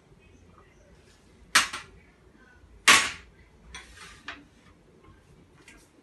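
Drinking glasses being set down on a serving tray: two sharp clacks about a second and a half apart, then a few lighter knocks around four seconds in.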